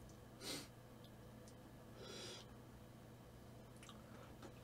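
Near silence: room tone, broken by two brief soft sounds, one about half a second in and one about two seconds in.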